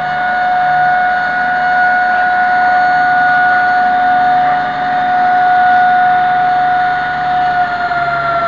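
Fire engine's warning signal sounding one steady, high tone as the truck pulls out, its pitch sliding a little lower near the end as the truck passes close by, with the engine running low underneath.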